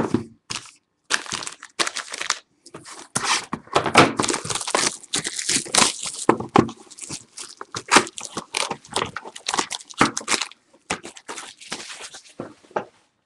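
Trading card boxes and packs being opened by hand: wrappers and cardboard tearing, crinkling and crackling in quick, irregular rips.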